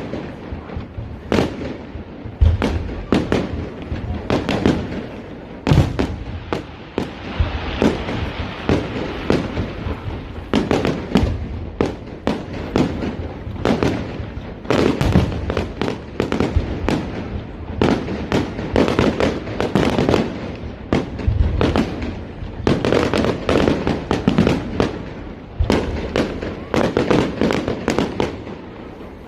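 Fireworks display: a dense, irregular run of bangs and booms from aerial shells over continuous crackling, several bursts a second at the busiest points.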